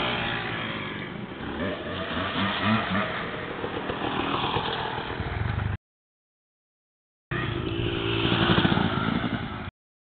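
Enduro dirt bike engines revving up and down as bikes ride by. The sound cuts out completely about six seconds in, comes back for a couple of seconds, then cuts out again near the end.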